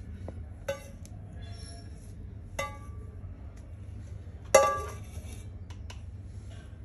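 Hard kitchenware clinking three times: a light clink just under a second in, another a couple of seconds later, and the loudest about four and a half seconds in, each with a short ring.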